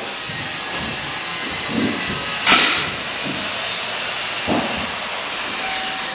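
Steady rushing hiss, with one short, louder hiss about two and a half seconds in and a few faint knocks.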